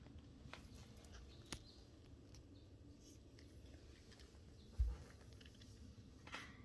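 Near-quiet room, with a few faint ticks and a single short low thump a little before five seconds in.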